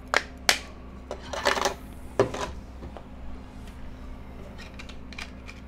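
Plastic back cover of an Energizer E241s feature phone being pried off by hand: two sharp snaps as the clips let go, a clattery rattle, a harder knock about two seconds in, then a few light clicks.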